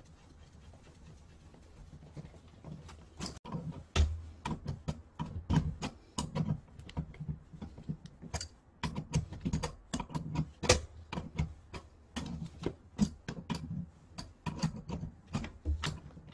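Metal wrench clicking and tapping on brass pipe fittings under an electric water heater while a connection is tightened, in quick irregular ticks mixed with fabric rustle and handling bumps. A sharper knock comes right at the end.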